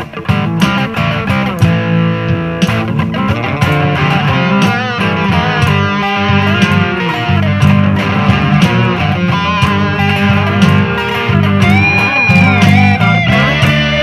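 Blues-rock instrumental passage: electric guitars over bass guitar and a drum kit, with no singing. A high note is held for about a second around twelve seconds in.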